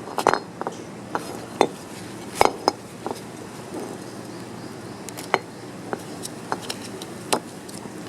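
A dozen or so irregular sharp metallic clinks and taps, like metal parts or tools knocking together, over a steady low hum.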